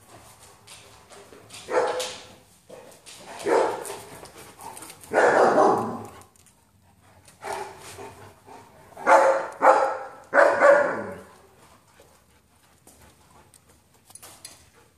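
German Shepherd barking: about seven barks, some short and some drawn out, falling quiet for the last few seconds.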